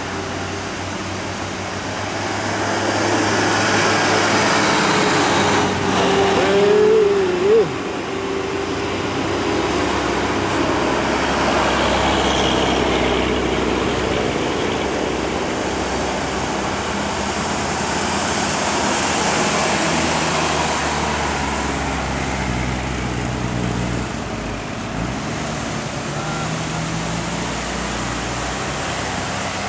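Road traffic passing by: vehicle engines running low with tyre and wind noise, swelling as vehicles go past, around three to seven seconds in and again near twenty seconds. A short wavering tone stands out about seven seconds in.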